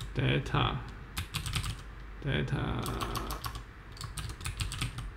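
Typing on a computer keyboard: runs of quick keystroke clicks as a file name is typed in.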